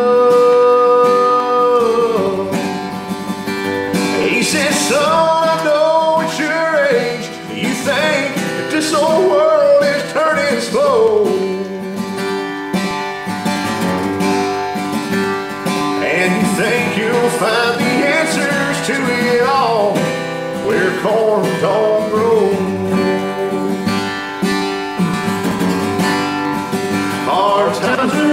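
Country music with guitar and a gliding lead melody line.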